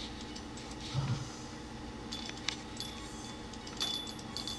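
Faint, irregular clicking of a budgie's beak and tongue working at a vertical-blind slat. Near the end a small bird-toy bell starts ringing and jingling.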